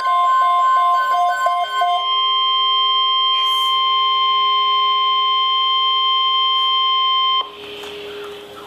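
NOAA Weather Radio warning alarm: a steady single-pitch tone near 1 kHz signalling an alert broadcast, with a rapid beeping pattern over it for the first two seconds. The tone cuts off abruptly about seven seconds in, leaving quieter radio hiss.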